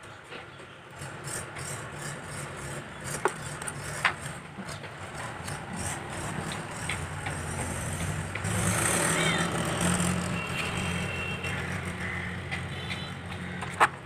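A motor vehicle's low engine rumble builds, is loudest a little past the middle and eases off slightly. A few sharp clicks sound over it as small phone parts are handled.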